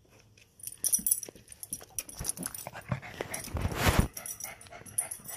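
Puppy snuffling and scuffling right at the microphone, with many short clicks. The loudest burst, a rubbing noise, comes just before four seconds in, as it presses up close.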